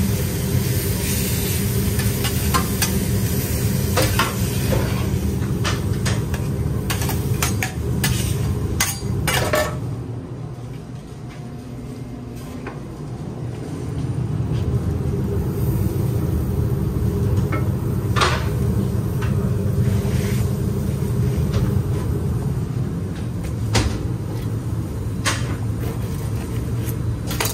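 Metal spatulas tapping, chopping and scraping on a steel flat-top grill: rapid clicks and knocks for the first several seconds, then scattered knocks. A steady low hum runs underneath throughout.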